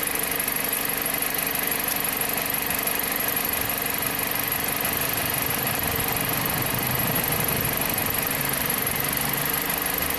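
2007 Jeep Compass four-cylinder engine idling steadily.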